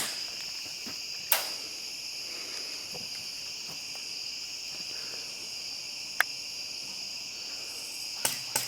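Crickets chirring steadily. Two sharp single cracks cut through, one about a second in and one a little past six seconds, and a few more start near the end.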